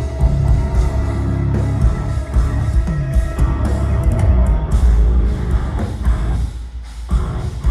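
Progressive metal band playing live: heavy distorted guitars, bass and drum kit, loud and dense. The band drops out briefly near the end, then comes back in.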